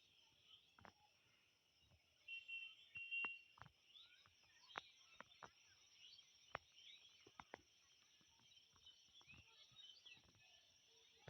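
Faint chorus of small birds chirping and twittering, with a louder run of short whistled notes about two to three seconds in, over a steady high insect drone and scattered sharp clicks.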